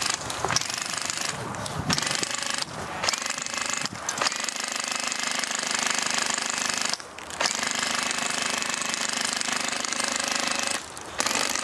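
Classic Army M132 Microgun, an HPA-powered airsoft minigun, firing in long bursts of rapid, rattling fire broken by several short pauses.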